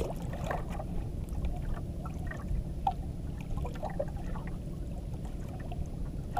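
Water lapping against the hull of a small outrigger canoe, under a steady low rumble, with a few faint knocks.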